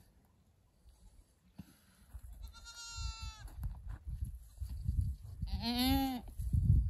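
Goat in labour bleating twice: a higher, fainter bleat about three seconds in and a louder, lower bleat near the end.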